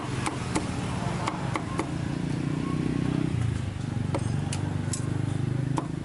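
Meat cleaver chopping glazed roast meat on a thick wooden chopping block: a run of sharp knocks in the first two seconds, a pause, then more knocks from about four seconds in. A steady low engine drone runs underneath, strongest around the middle.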